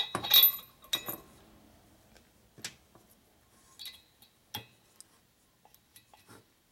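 Small metal valve-spring collar clinking with a short ring as it is set down over the valve guide of a Harley-Davidson shovelhead's aluminium cylinder head. A few scattered light clicks and taps follow as the parts are worked on by hand.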